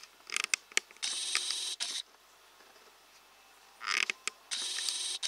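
Digital camera's zoom lens motor whirring twice, each run about a second long and steady, with a few small clicks from the camera's controls just before each.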